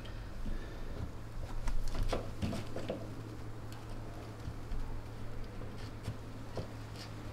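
Light scraping, rustling and small knocks of hands working an electrical wire through a small hole in drywall, busiest in the first three seconds.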